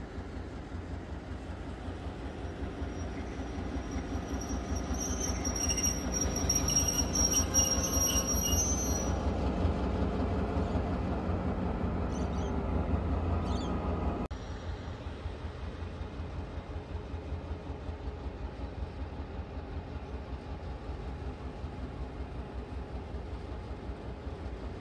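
421 class diesel-electric locomotive 42103, its EMD V16 two-stroke diesel running as it creeps forward with its carriages. A high metallic squeal from the wheels or brakes comes a few seconds in as it slows to a stand. About fourteen seconds in the engine note drops suddenly, and it then idles steadily.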